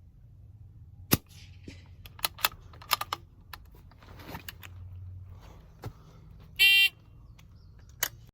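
A series of sharp clicks and knocks, the loudest about a second in, then a short electronic beep from a phone par timer at about six and a half seconds, and one more click near the end.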